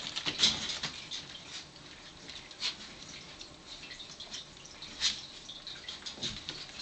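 Four-week-old bull terrier puppies squeaking and scuffling as they play, a run of short high squeaks and scratchy sounds. The loudest come about half a second in, near the middle and about five seconds in.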